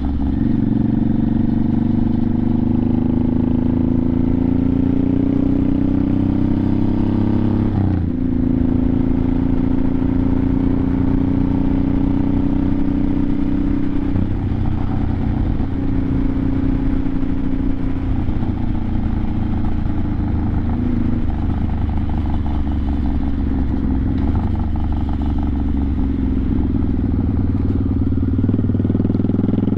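1986 Honda Shadow 700's V-twin engine running under way, heard from the saddle. Its pitch climbs for the first several seconds, drops suddenly about eight seconds in, then holds fairly steady with small rises and falls in revs.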